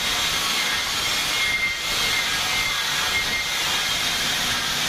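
Steel being cut during container repair, a steady loud hiss with no break.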